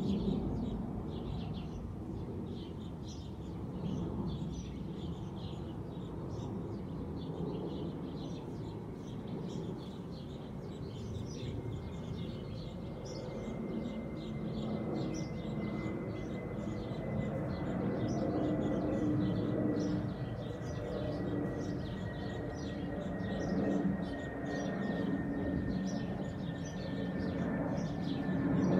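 Small birds chirping in quick repeated notes over a steady low rumble of distant city traffic. From about the middle an airplane overhead comes in: a low engine hum with a faint, slowly falling whine that grows towards the end.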